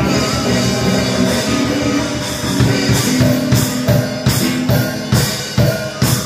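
A drum kit and an electric guitar played through a small combo amp, a live rock jam. From about halfway through the drums play hard separate accents about twice a second over a held guitar chord.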